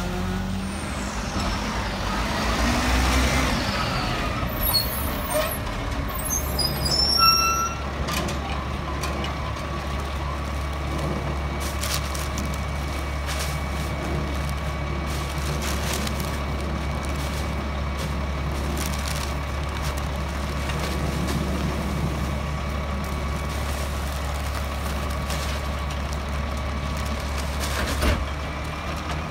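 EZ Pack Goliath rear-loader garbage truck running with a steady low engine drone. There are sharp air-brake hisses about five to seven seconds in.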